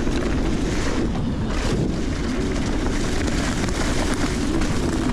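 Nukeproof Giga 290 carbon enduro mountain bike descending a trail at speed: a steady rush of wind over the microphone with the rumble and rattle of the bike over the ground.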